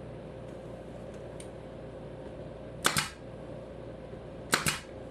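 Finish nail gun firing twice, about a second and a half apart, each shot a sharp double crack, driving finish nails to fasten crown molding to the wall.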